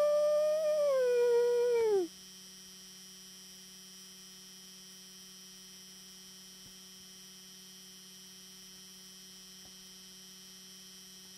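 A human imitating a wolf howl: one long howl that holds steady and then falls in pitch, ending about two seconds in. After it there is only a steady electrical hum.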